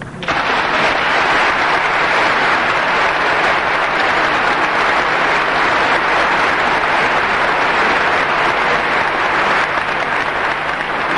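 Large audience applauding, breaking out suddenly and holding steady in a dense, even wash of clapping.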